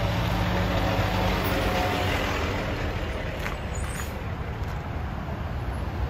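Large emergency truck driving past, its engine hum fading away over the first few seconds, over steady road and traffic noise.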